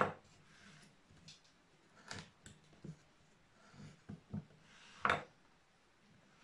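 Wooden-handled carving chisels being handled on a carved wooden relief panel: three sharp knocks and scrapes (one at the start, one about two seconds in, one about five seconds in) with a few softer ticks of tools and chips between them.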